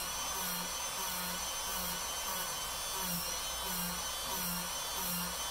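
Craftsman rotary tool spinning a small sanding drum against EVA foam to bevel its edge: a steady high whine whose pitch wavers slightly as it bears on the foam, with a soft low pulse about one and a half times a second.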